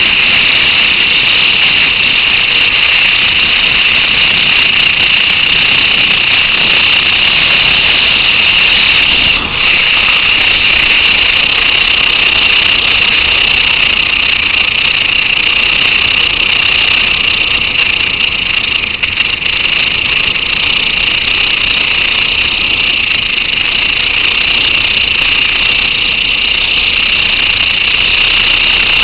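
Motorcycle riding at road speed: a steady, loud high-pitched rush of wind and road noise on the bike-mounted camera's microphone, with the engine running underneath. It dips briefly about nine seconds in.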